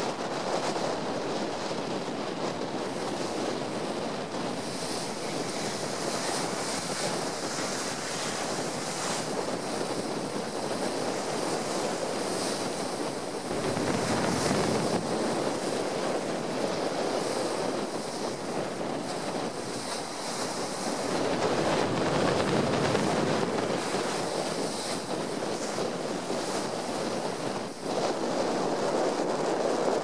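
Rough, wind-whipped estuary water with waves breaking and splashing against a stone sea wall, under a constant rush of strong wind. Wind gusts buffet the microphone, most heavily around the middle and again a little after two-thirds of the way through.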